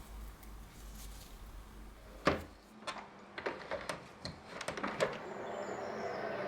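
A sharp knock about two seconds in, then a run of lighter clicks and knocks, with a steady hiss building near the end.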